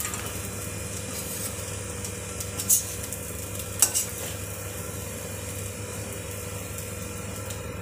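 A metal spoon scraping through fried elephant foot yam in a hot iron kadai, with a few sharp clinks about three and four seconds in, over a steady faint sizzle from the just-switched-off pan.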